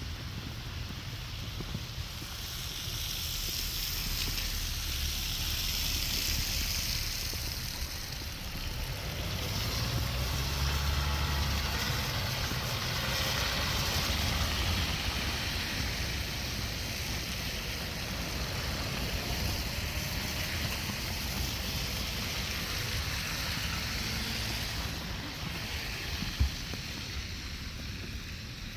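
Wind gusting over the microphone in a snowstorm, a low rumbling buffet with a hiss that swells and fades every few seconds, and a single sharp click near the end.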